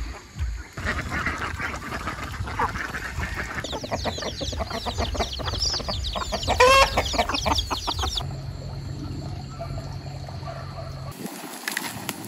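Farmyard chickens: chicks peeping rapidly and hens clucking, with one loud call from an adult bird about seven seconds in. After about eight seconds the calls stop and a low steady hum is left.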